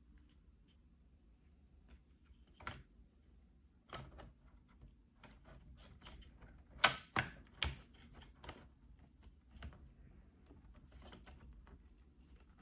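Scattered plastic clicks and knocks as a laptop hard drive is handled and pushed against the laptop's drive bay. The loudest cluster comes about seven seconds in. The drive won't go in because the cover on it is too big for the bay.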